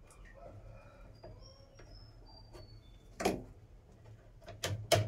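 A few sharp knocks and clicks, one about three seconds in and three in quick succession near the end, over a faint low hum, with a few faint high chirps in the first half.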